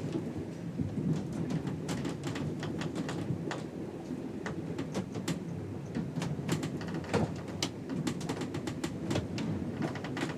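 Below-deck ship ambience: a steady low rumble with frequent short creaks, clicks and knocks scattered throughout.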